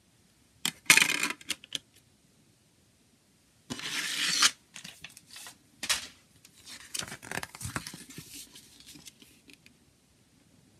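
Plastic CD jewel case and its paper booklet being handled. There are clicks and scraping from the plastic case in the first seconds and a longer scrape about four seconds in. Softer paper rustling follows as the booklet is opened out.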